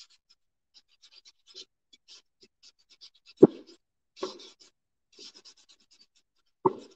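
Sanding block scraping over the painted surface of a terracotta flower pot in short, scratchy strokes. A sharp knock comes about three and a half seconds in, with softer thumps after it.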